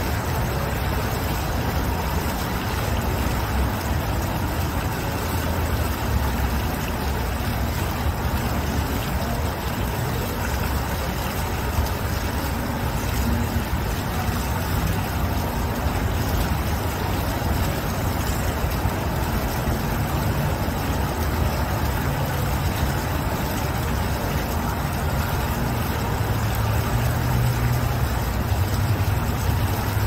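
Steady splashing of a fountain's single water jet falling back into its pool, with a low rumble underneath that swells slightly near the end.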